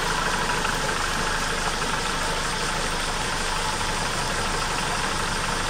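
Yamaha 115 hp outboard motor idling steadily.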